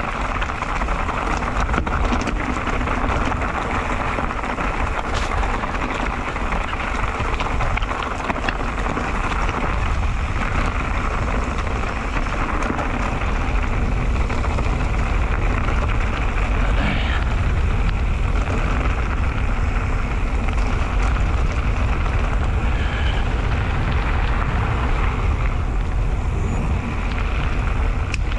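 Mountain bike rolling down a dirt and gravel trail: steady wind rumble on the microphone over tyres crunching on loose stones, with scattered clicks and rattles from the bike.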